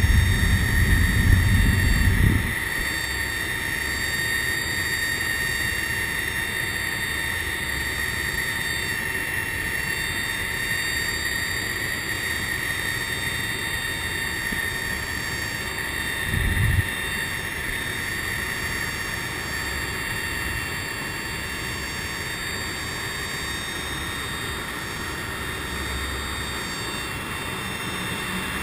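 C-130 Hercules turboprop engines running steadily with a high whine, heard from inside the fuselage on the landing approach. A loud low rumble fills the first two seconds or so, and a brief low thump comes a little past the middle.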